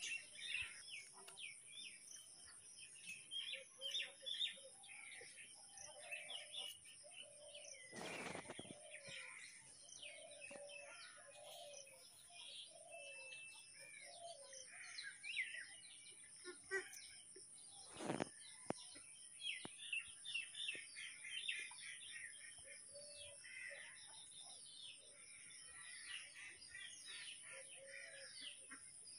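Birds chirping in the background, many short high chirps with lower calls now and then. Two brief knocks are heard, about eight and eighteen seconds in.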